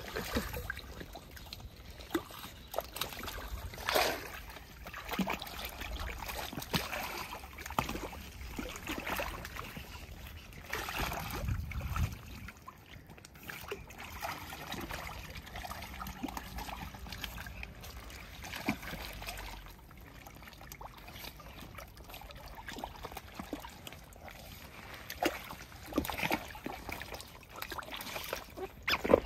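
Otter swimming in a small pool, the water sloshing and splashing in irregular bursts.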